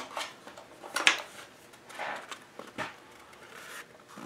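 Handling noise from a gate opener's circuit board and plastic housing: short scrapes, rubs and clicks as the board is worked loose and lifted out, the loudest about a second in.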